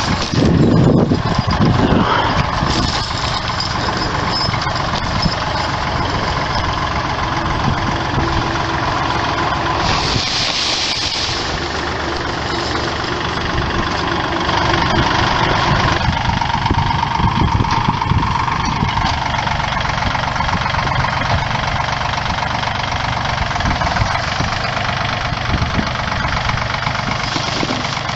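Tractor engine running steadily, with a brief hiss about ten seconds in.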